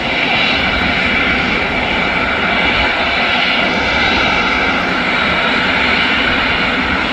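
Airbus A380's four jet engines at taxi power as the airliner rolls along the taxiway: a steady jet roar with a faint high whine held through it.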